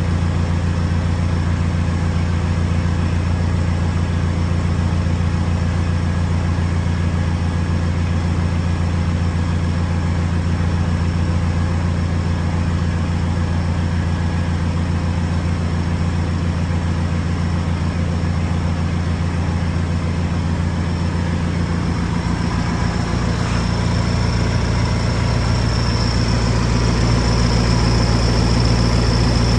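A vehicle engine idling steadily, its low note changing about two-thirds of the way through and getting slightly louder toward the end, with a thin high whine above it.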